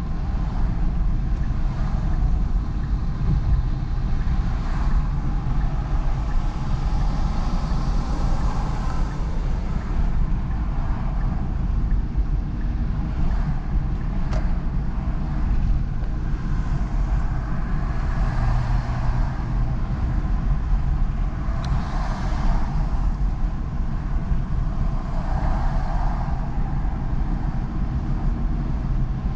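A car driving on city streets: a steady low rumble of engine and road noise, with several swells of higher tyre and traffic noise along the way.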